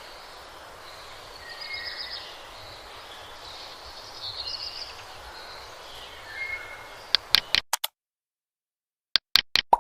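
Outdoor nature ambience: a steady soft hiss with birds chirping now and then in short high phrases. It ends abruptly after about seven and a half seconds, and quick runs of sharp pops or clicks come about seven seconds in and again near the end.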